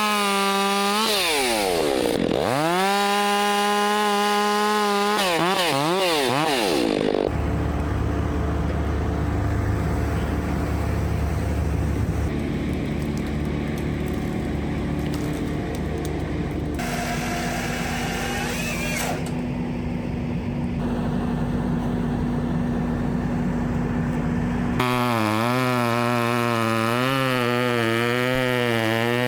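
Gas chainsaw engines revving and cutting, their pitch rising and falling repeatedly with the throttle. Through the middle a steadier, lower engine note runs, and the sound changes abruptly several times.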